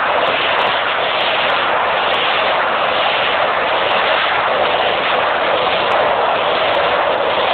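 Steady, loud rush of wind and road noise from travelling at speed beside a 2006 Yamaha YFZ450 quad, its single-cylinder four-stroke engine running under load as it is held in a wheelie.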